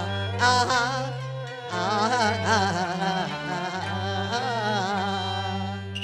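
Live Cantonese opera song (yueju) music: a melody with heavy vibrato over sustained low bass notes that change about once a second.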